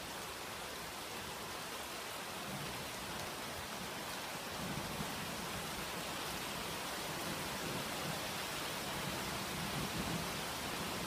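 Steady rain falling on leafy garden trees and bushes, an even hiss that gets a little louder about halfway through.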